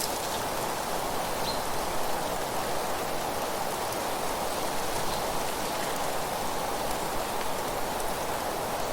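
Steady rushing of wind with rustling dry leaves: an even noise with faint scattered ticks.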